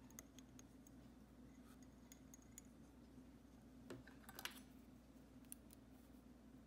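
Near silence: a low steady hum with a few faint clicks and ticks, the most distinct about four seconds in, from a metal fly-tying bobbin and thread being wrapped around a hook in a vise.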